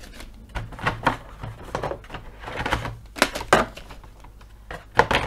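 Board game components being handled and set down: irregular clicks, taps and knocks of small pieces, with the sharpest knocks about three seconds in and again near the end.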